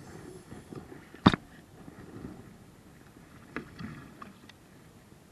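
A sharp knock against the kayak about a second in and a softer one a couple of seconds later, with faint handling noise between, as a hooked bass is played alongside the kayak.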